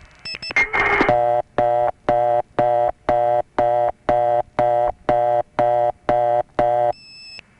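Telephone line audio from a Bell System step-by-step tandem reached on a vacant level. A few switching clicks and a short burst of noise come first, then the line slides into the reorder (fast busy) tone, which pulses on and off about twice a second, twelve times, and stops near the end.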